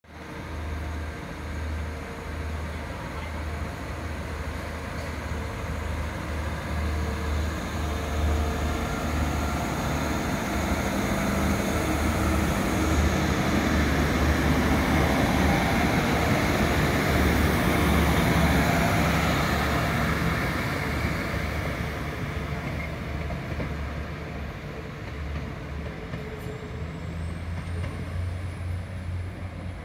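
Class 175 diesel multiple unit pulling out and accelerating away, its underfloor diesel engines running under load. It grows louder as it passes, then fades as it draws off into the distance.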